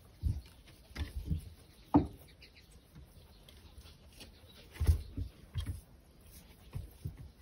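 Soft, irregular bumps and straw rustling as rabbits shift about on the board and straw bedding of a wooden hutch, with one sharper knock about two seconds in.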